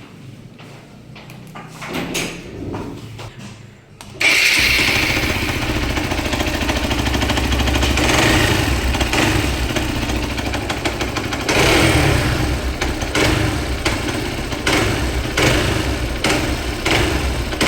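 Hero XPulse 200's single-cylinder engine starting about four seconds in and running with a repeated knocking sound, swelling briefly now and then. It is the knock the mechanic suspects is typically a worn balancer pinion.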